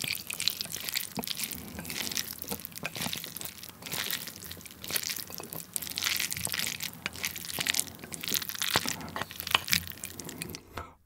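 Wooden chopsticks stirring hot instant ramen noodles in a small ceramic bowl to melt cheese through them: a continuous wet, sticky squelching of noodles with many small clicks.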